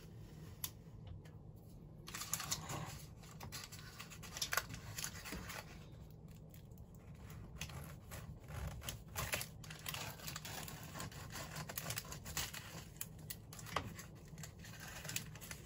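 Knife sawing through baked puff pastry: the flaky layers crackling and crunching in irregular little bursts, starting about two seconds in, with the paper cupcake case crinkling as it is held.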